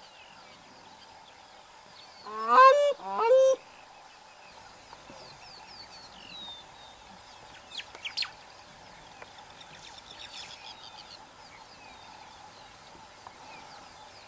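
An animal calling twice in quick succession: two loud, short calls that rise in pitch and then hold, over faint chirping of small birds.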